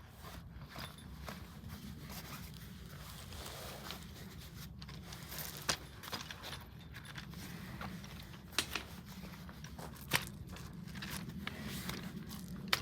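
Scattered sharp clicks and rustling handling noises, the loudest about six, eight and a half and ten seconds in, over a low steady hum.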